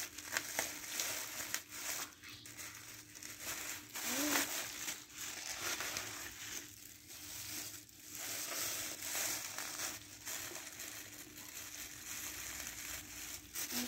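Plastic mailer bag and bubble wrap crinkling and rustling in uneven bursts as they are pulled open by hand.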